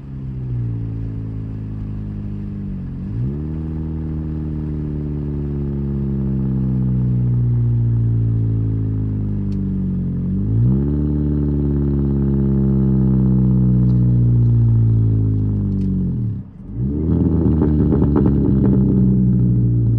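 Straight-piped 2008 Pontiac Vibe's 1.8-litre four-cylinder engine pulling through the gears. It is loud and raspy through a side-exit exhaust with no catalytic converters, resonator or muffler. The note climbs steadily in pitch and drops back at each gear change, about three seconds in and again around ten seconds. Near the end the note falls away briefly, then comes back rougher, with crackles over it.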